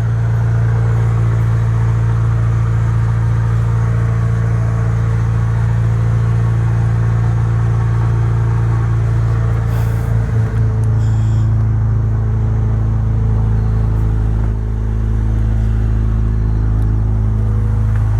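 1991 Honda Prelude Si's four-cylinder engine idling steadily while warming up just after starting, having sat unused for a week. The exhaust goes through a muffler that the owner says needs replacing and suspects of leaking. The idle dips briefly about ten seconds in.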